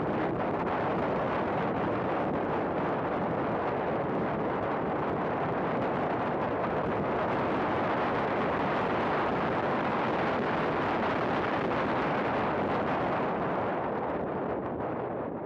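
Steady rush of wind and road noise on a race car's onboard camera at track speed, dense with no clear engine note. It eases a little near the end as the car brakes for a turn.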